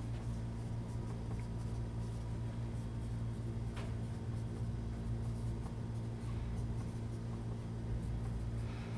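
Dry-erase marker writing on a whiteboard: faint scratching and squeaking strokes as words are written, over a steady low hum.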